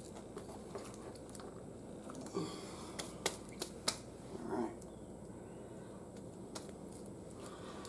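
Handling noises while working on the mower: a few sharp clicks and light knocks in quick succession a few seconds in, with a couple of short scraping rustles, over faint background hiss.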